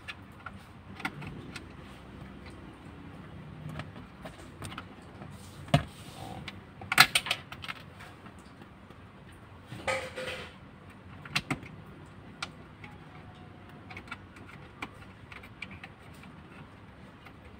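Scattered clicks, taps and knocks of hands and tools working on a plastic car armrest console as it is fastened in place, with a louder clatter about seven seconds in and a short scrape about ten seconds in.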